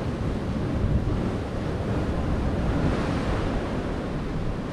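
Sea surf washing against a rocky shoreline, with wind gusting on the microphone.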